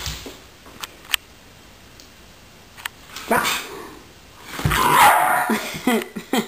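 A small white dog, wet from her bath and excited, barks, loudest a little past the middle, with a couple of sharp clicks about a second in.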